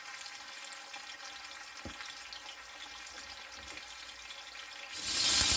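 Chicken thighs sizzling gently in hot oil in a cast-iron tagine, with one soft knock about two seconds in. Near the end the frying turns suddenly much louder, a dense, spattering sizzle.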